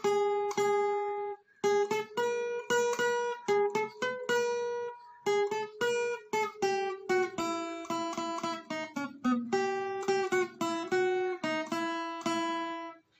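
Background music: acoustic guitar playing a melody of plucked notes, with a brief pause about a second and a half in.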